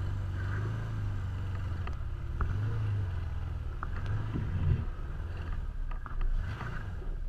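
Side-by-side off-road vehicle's engine running at low speed over rough ground, rising briefly in pitch a little past halfway, with a few sharp knocks and rattles from the machine as it jolts.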